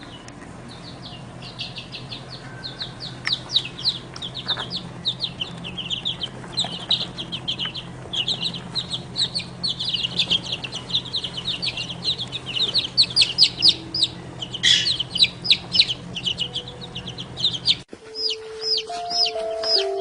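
Baby birds cheeping without a break, many quick high peeps overlapping, over a low steady hum. Near the end it cuts to evenly spaced single chick peeps, about two a second, with background music.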